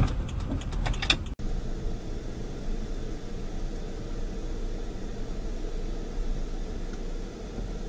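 Steady low hum of a car's engine and road noise heard inside the cabin through a dashcam, after a few sharp clicks in the first second or so that end at a sudden cut.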